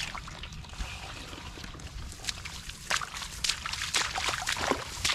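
Splashing and sloshing in shallow field water as fish are grabbed by hand, in irregular bursts that get busier and louder about three seconds in.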